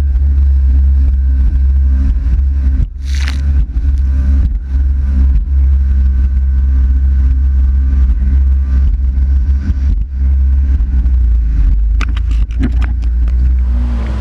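Yamaha GP1300R jet ski's two-stroke triple running hard across choppy water, a loud steady low rumble heard through a camera mounted on the hull. A brief rush of noise comes about three seconds in, and a few sharp knocks come near the end.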